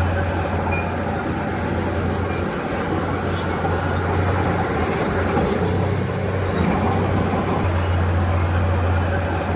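Komatsu D31P crawler bulldozer's diesel engine running steadily with a constant low hum, with scattered light metallic clinks over it.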